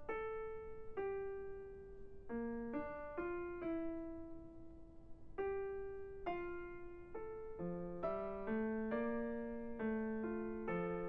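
Background piano music: a slow melody of single notes, each left to ring and fade, joined by a lower second line about two-thirds of the way through.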